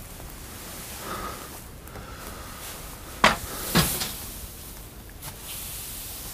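Two sharp knocks about half a second apart, the second with a lower, duller tail, over faint steady background noise.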